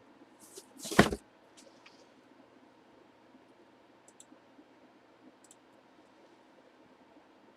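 A single short knock about a second in, followed by a few faint clicks.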